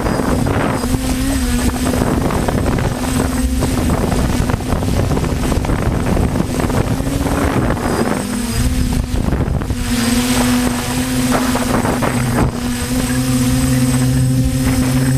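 DJI F450 quadcopter's motors and propellers humming steadily, the pitch wavering up and down, with wind buffeting the microphone.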